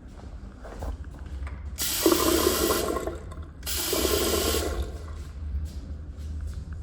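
Water running from a plumbing fixture in two short gushes of about a second each, the first near two seconds in and the second near four seconds, over a low steady room hum.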